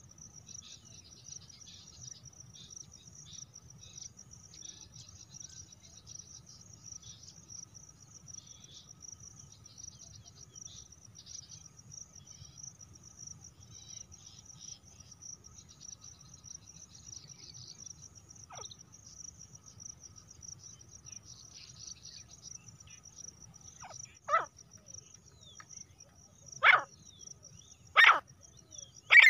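Crickets trill steadily; in the last five seconds a female grey francolin gives four loud, harsh single calls a second or two apart.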